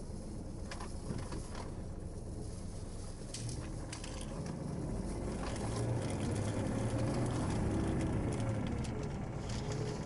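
Low, steady vehicle rumble with scattered light clicks, growing louder about halfway through.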